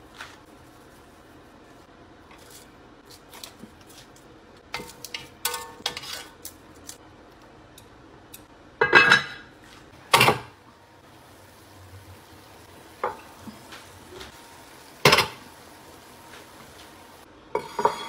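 Cookware and dishes clattering: scattered light clicks and taps, then two loud clanks about midway as the heavy lid of an enamelled Dutch oven is handled, further single knocks, and a ceramic plate knocking on a wooden board near the end.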